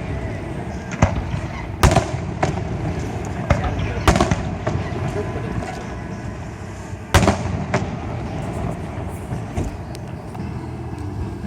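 Fireworks shells bursting overhead: a run of sharp bangs at uneven spacing, the loudest about two, four and seven seconds in, over a steady low rumble.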